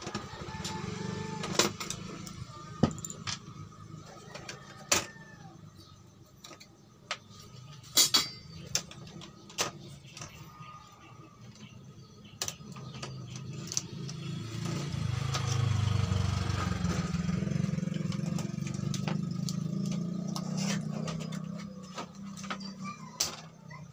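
Scattered sharp clicks and taps of cable connectors and metal parts as the main board of an LED TV is unplugged and lifted off its sheet-metal chassis, over a steady low hum. A low rumble swells for several seconds in the second half.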